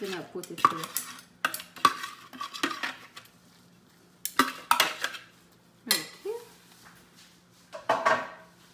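Metal spoon scraping and knocking against a plastic food-processor bowl, tapping out a blended onion-and-herb paste onto a china plate. The sharp knocks and clinks come in irregular clusters, with a pause of about a second in the middle.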